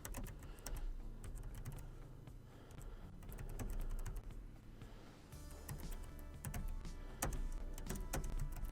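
Typing on a computer keyboard: irregular, uneven keystroke clicks, typing in a command to download the Scroll pHAT HD software library.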